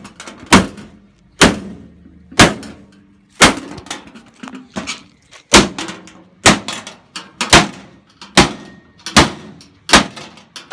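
Hammer striking a washing machine's metal cabinet over and over, a dozen or so sharp blows at about one a second, each with a short ring.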